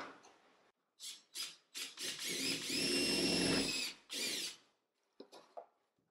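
Cordless drill fixing a small box to the wall: two quick trigger blips, then a longer run of about two seconds whose motor whine climbs and holds, then one more short burst.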